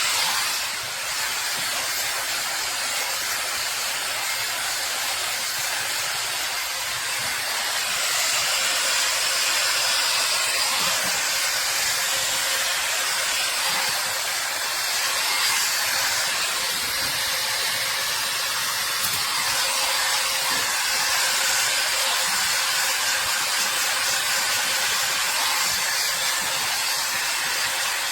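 Hair Trends Nano Titanium mini hot air brush, a dual-voltage travel dryer brush, running steadily as it is passed through hair: a constant blowing hiss of air over a faint steady motor hum.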